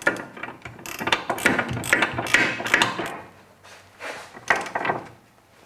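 Ratchet wrench clicking and metal tools clinking as a nut is run down onto a new rear anti-roll bar drop link. The clicking is dense for about three seconds, then gives way to a few short rattles.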